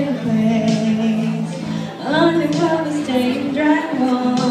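A girl singing live into a microphone over steady instrumental accompaniment.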